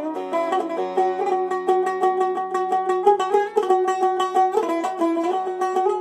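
Zeynel Abidin Cümbüş sazbüş, a long-necked saz-style neck on a cümbüş's metal, skin-headed resonator body, picked with a plectrum in a freely improvised melody, each note struck in quick repeated strokes with a bright, banjo-like twang.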